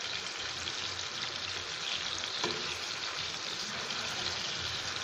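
Chicken-filling rolls shallow-frying in hot oil in a nonstick pan: a steady sizzle, with a spatula turning them over and a light knock about halfway through.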